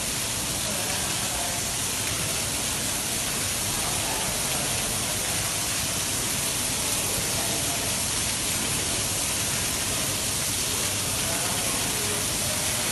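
Heavy rain pouring down in a severe storm, a steady, dense hiss that holds the same level throughout.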